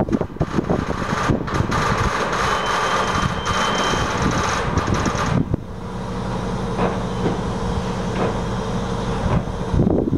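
Heavy vehicle machinery running, noisy and rattling for about the first five seconds, then settling abruptly into a steadier engine hum.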